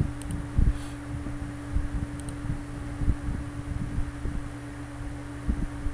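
A steady low hum with a rumble underneath and soft, irregular low thumps.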